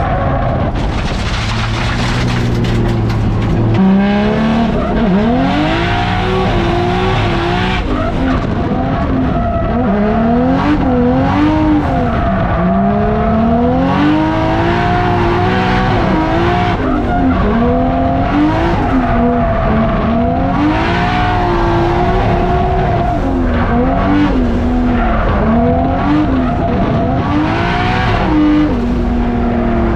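Drift car engine revving hard, its pitch climbing and dropping every couple of seconds as the throttle is worked, with tyres squealing as the car slides.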